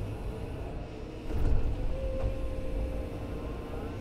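Hydraulic excavator's diesel engine running under load, heard from inside the cab, as the stick and bucket drag material in along the ground. The engine grows louder about a second and a half in, and a steady whine sounds for about a second near the middle.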